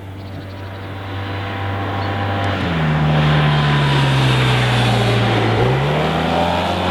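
Yamaha TMAX 530 SX maxi-scooter's parallel-twin engine running through its stock exhaust. It grows louder over the first few seconds; past the middle its note falls slowly, then climbs again near the end.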